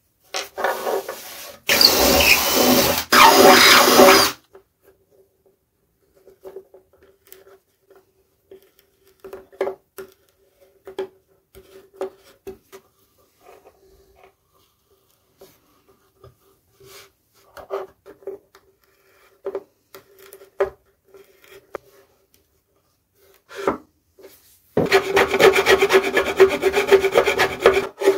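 Threaded metal inserts being driven into a plywood table top with a hex key: rasping, scraping bursts as the insert threads cut into the wood, two loud spells with quick repeated strokes, and light metal clicks between them.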